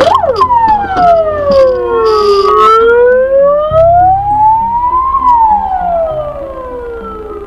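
Police car siren in a slow wail: it switches from a fast yelp to a long sweep that falls, rises and falls again in pitch, growing quieter near the end.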